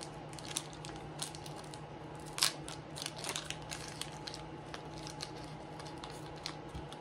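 Foil Pokémon booster pack wrapper being torn open and crinkled by hand: a run of small crackles, with one louder crackle about two and a half seconds in.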